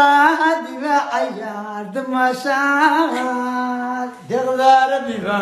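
Voices singing a melody without instruments, with long held notes, one held steady for about a second past the middle.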